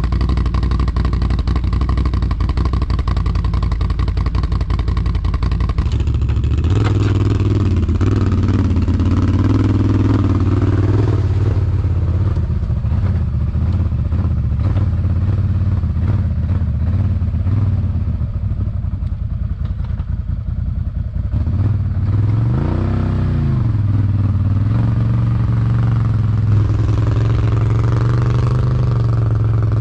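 Can-Am Outlander 1000R ATV's V-twin engine running, its pitch stepping up about six seconds in and rising and falling briefly around two-thirds of the way through.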